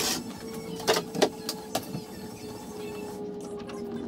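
A few sharp knocks and clicks from parts and packaging being handled in a wooden shipping crate, over a faint steady hum.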